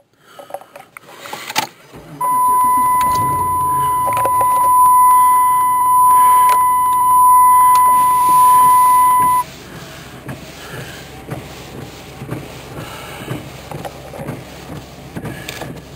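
A loud, steady electronic beep at one unchanging pitch starts about two seconds in, holds for about seven seconds and cuts off suddenly. Scattered knocks and a low rumble run around it.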